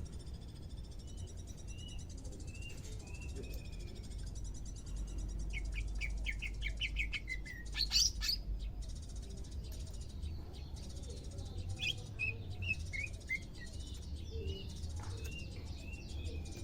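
Cucak ijo (green leafbird) calling: scattered short chirps, a quick run of rapid notes partway through followed by one louder, sharp note, then more short chirps.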